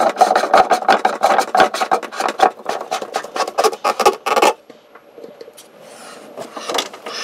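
Rapid scraping and clicking of a black plastic filter housing being moved and fitted against a plywood cabinet wall, stopping about four and a half seconds in; a few soft handling sounds follow.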